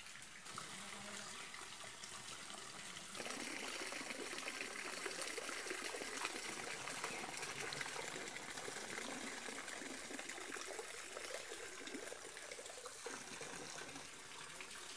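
Heavy tropical downpour with rainwater running and trickling down a rusty metal roof gutter: a steady rushing sound that steps up sharply about three seconds in and eases a little near the end.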